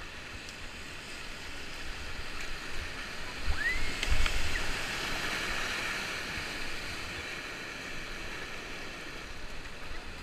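Whitewater rapid rushing around an inflatable kayak as it runs through the waves, the rush growing louder about three and a half seconds in and then easing off.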